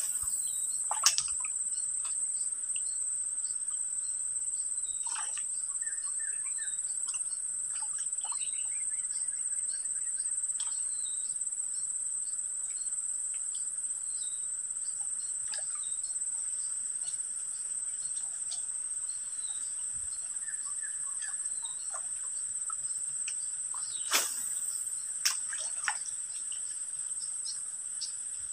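Steady high-pitched drone of insects, with scattered short bird chirps and a few sharp clicks about a second in and again near the end.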